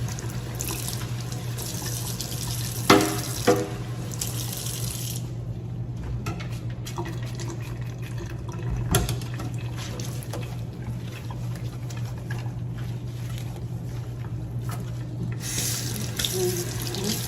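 Water running from a sink tap, its hiss stronger at the start and near the end, with two short louder knocks or splashes about three seconds in.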